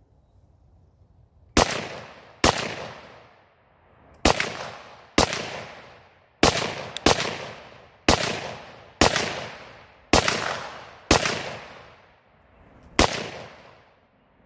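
Chinese SKS semi-automatic rifle in 7.62×39mm firing about ten shots at roughly one a second, each with a trailing echo, emptying its 10-round magazine.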